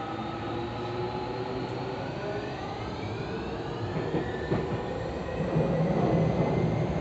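Tokyu 5050 series electric train heard from inside the car as it accelerates. The motor whine rises in pitch in several tones over the first few seconds, over the rumble of wheels on rail, which grows louder near the end.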